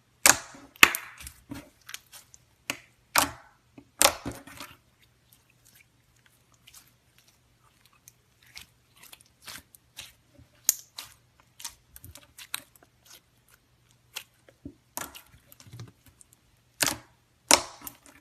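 Clear slime being squeezed and stretched by hand, giving sharp wet clicks and pops. They come in a quick loud cluster over the first few seconds, thin out to soft scattered clicks in the middle, and turn into a few loud pops again near the end.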